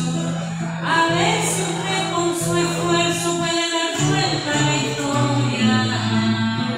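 A woman singing to her own acoustic guitar accompaniment, the guitar's low bass notes changing every second or so.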